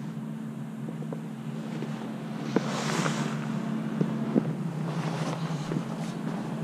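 A few sharp clinks of hand tools being handled, with a brief rustle about three seconds in, over a steady low hum.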